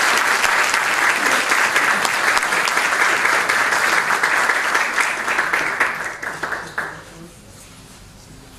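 Audience applauding, a dense patter of many hands clapping that thins out and dies away about seven seconds in.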